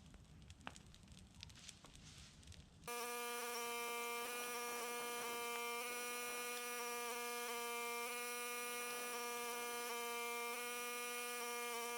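Faint crackling, then about three seconds in a steady electric buzz with a fixed pitch and many overtones starts abruptly and carries on, much louder than the crackle.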